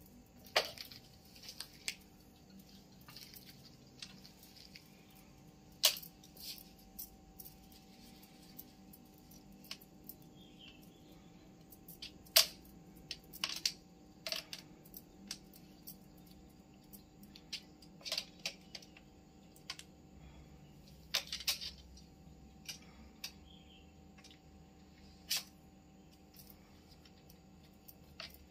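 Scattered, irregular light clicks and clatters as two kittens play at a plastic pet carrier, pawing at its wire door and a dangling string of beads.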